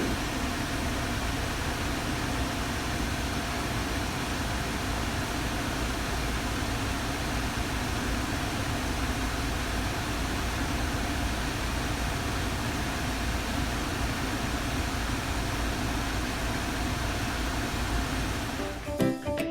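Nissan Lafesta B30's A/C blower fan running, with a steady rush of air from the dash vents and a faint steady hum. Music comes in near the end.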